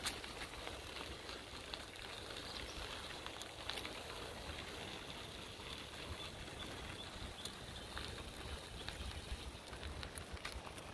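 Bicycle tyres rolling on a gravel towpath: a steady gritty rolling noise with scattered small clicks from loose stones. A low wind rumble on the microphone runs underneath.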